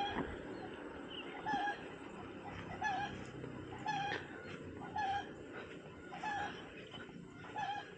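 A short animal call repeated about seven times at a steady pace of roughly one every 1.2 seconds, each call brief and pitched, over a low steady background with fainter chirps.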